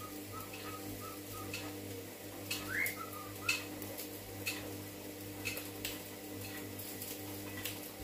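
Cockatiel whistling a few soft short notes, with one rising whistle about three seconds in, then going quiet. Light sharp ticks come roughly once a second throughout.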